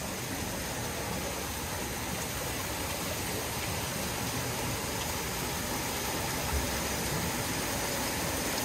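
Steady rushing of water at a thermal pool, an even hiss with no distinct events.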